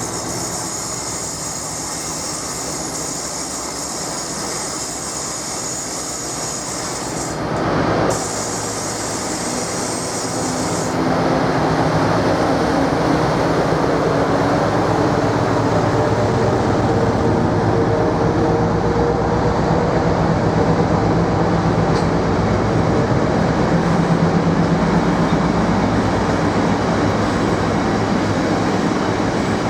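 A train running on the rails with a steady rumble, a brief louder burst about eight seconds in, and a louder hum with a steady engine or motor tone from about eleven seconds on.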